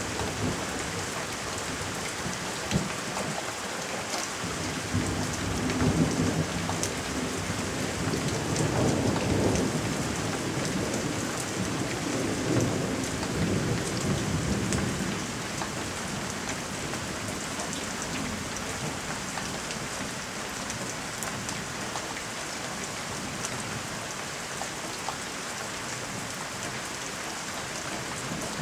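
Heavy rain pouring steadily, with thunder rumbling in several long rolling swells through the first half, after which only the rain is left.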